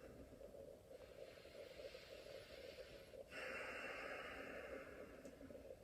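Faint, slow breathing close to the microphone: a soft breath in, then a louder, steady breath out starting about three seconds in and lasting about two seconds.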